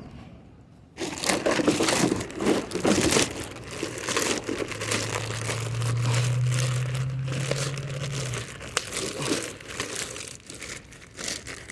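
Plastic trash bag crinkling and rustling as it is handled and rummaged through, with many sharp crackles, starting about a second in. A steady low hum joins in the middle for a few seconds.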